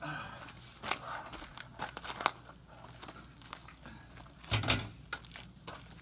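Footsteps crunching on gravel, with a louder thump about four and a half seconds in as a plastic hard-shell trunk is set onto a metal luggage rack.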